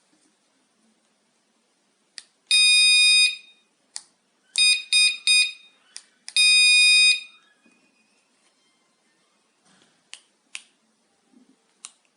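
HENDUN wireless door/window alarm beeping: one long high-pitched beep, then three short beeps, then another long beep, with sharp clicks before, between and after the beeps.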